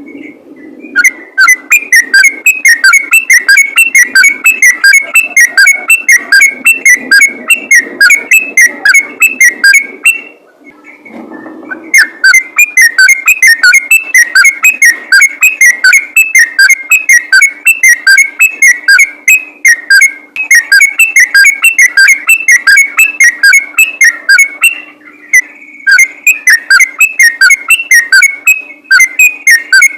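Yellow-vented bulbul (trucukan) singing long, fast runs of rapid whistled notes, with short pauses about ten seconds in and again near twenty-five seconds.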